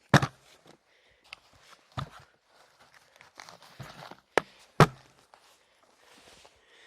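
Plastic shop vac canister being knocked and handled to empty out packed snow: four sharp thumps, the last two close together, with faint scraping between them. The vacuum motor is off.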